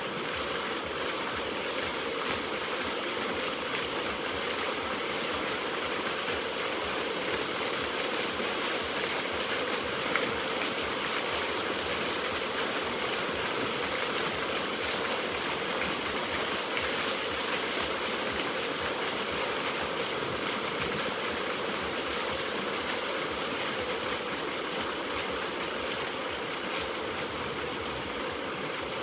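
Steady rushing and splashing of fountain water jets spraying and falling back into the pool.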